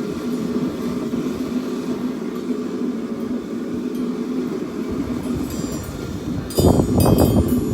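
A forge running with a steady hum. About a second before the end, a quick run of hammer blows on steel at the anvil begins, each strike ringing.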